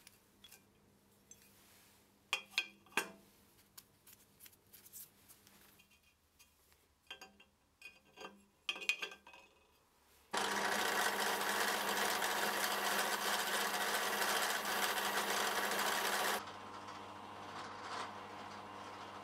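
A few light clinks of small metal parts being handled, then, about ten seconds in, a drill press starts up abruptly with a cup brush scrubbing the paint off a cast metal bandsaw guide part: a loud, steady grinding hiss for about six seconds. It then drops to a quieter steady run near the end.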